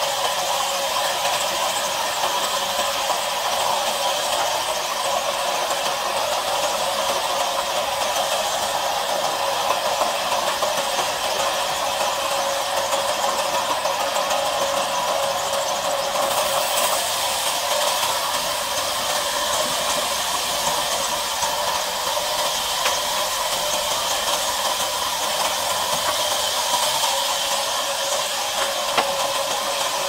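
Large vertical band saw running steadily, its blade ripping lengthwise through a thick wooden slab, with a steady whine over a hiss of cutting.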